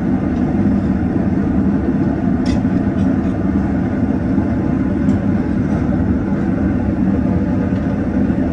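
Blower-fed forge burning with its fan running, a steady low rush that holds even throughout, with a faint tick about two and a half seconds in.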